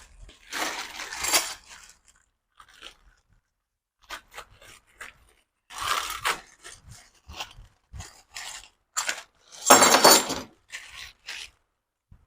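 Crunching and crackling of fan packaging being handled in several irregular bursts, with scattered clicks and knocks of parts being moved.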